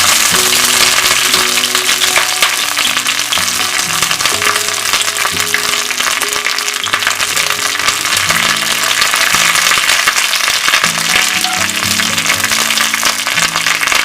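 Coated chicken pieces for Chicken 65 deep-frying in hot oil, with a loud, continuous sizzle. Background music plays underneath.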